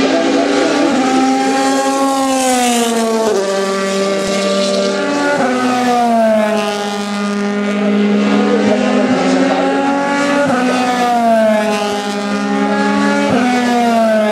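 Racing car engines at high revs on a race circuit, one continuous engine note gliding up and down as the cars pass, with abrupt jumps in pitch four times as gears change.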